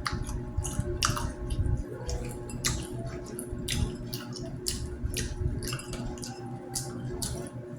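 A person chewing saucy street food close to the microphone: irregular wet smacks and clicks, about one or two a second, over a steady low hum.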